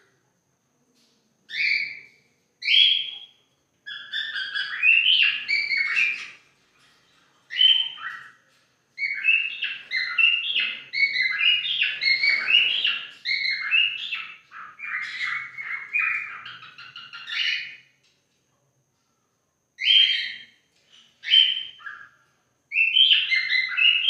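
White-faced cockatiel whistling in runs of quick, high whistled notes, with a few single calls and short pauses between the runs.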